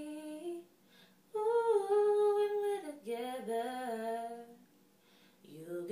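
A woman singing a cappella, holding long, sliding notes with two short pauses for breath between phrases.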